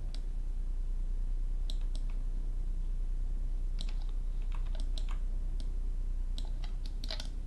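Scattered clicks of a computer mouse and keyboard, a handful of them coming quickly near the end, over a steady low hum.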